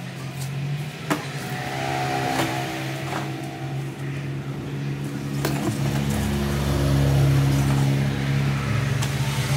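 A cardboard box is unpacked and a cut-off saw is lifted out and set on a wooden table, giving scattered knocks and rustles. A steady low drone runs underneath and grows louder after about six seconds.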